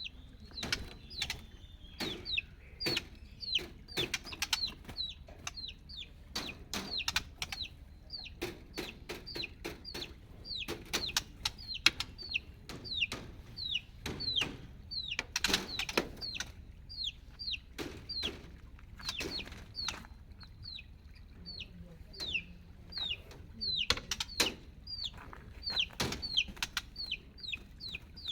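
Chicks peeping over and over, each peep a short, high note falling quickly in pitch, two or three a second, with sharp taps and knocks in between.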